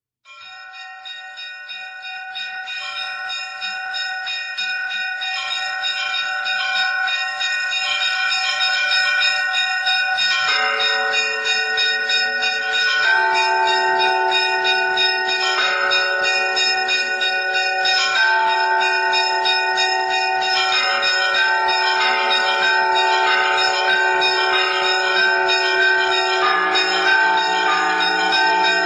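Church bells ringing in a continuous peal, several bells sounding and overlapping, fading in over the first several seconds.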